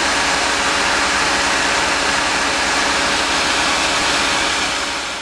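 A fire engine running steadily, a constant mechanical rumble with a broad hiss over it, fading out near the end.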